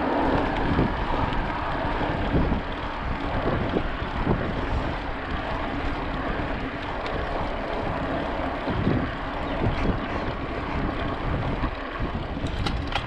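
Wind buffeting the microphone of a GoPro riding on a moving mountain bike, over a steady rush of rolling noise with low gusty rumbles.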